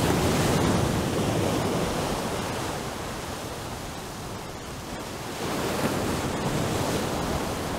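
Steady rushing noise of wind and sea, easing through the middle and rising again sharply about five seconds in.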